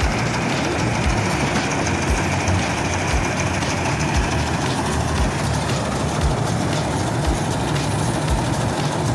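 Combine harvester running steadily at close range as it cuts standing wheat, with a low thump recurring about once a second.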